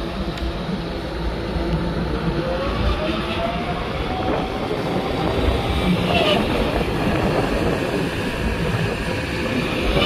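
Volvo EC350DL crawler excavator running and digging sand: a steady diesel engine rumble with a hydraulic whine that rises in pitch a couple of times as the boom and bucket work, and a brief high squeal about six seconds in.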